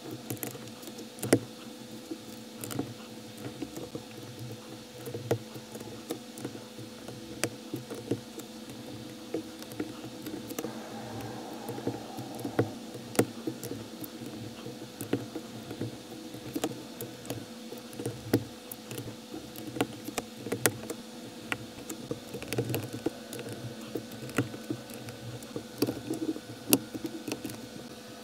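Plastic building bricks (Lego-compatible) clicking as they are handled, snapped together and set down on a tabletop: irregular small clicks and taps, several a second at times. A faint steady hum runs underneath.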